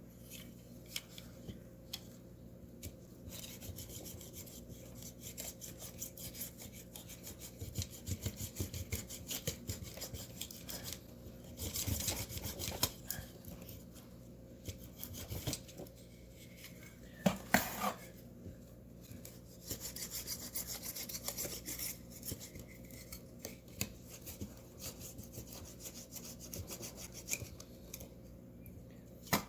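A blade sawing and scraping through the protruding ends of a rubber tire-repair plug to trim them off at the tread, in two long stretches of quick rubbing strokes with a single louder clatter between them.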